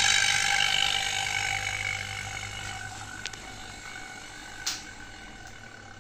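A steady hiss with a low hum beneath it, gradually fading, with two short sharp clicks in the second half.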